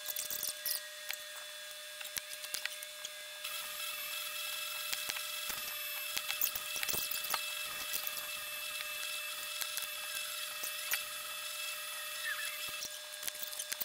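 Light clicks and knocks of small wooden box pieces being handled and pressed together on a wooden board during a glue-up, over a steady high-pitched machine whine and hiss that grows louder a few seconds in.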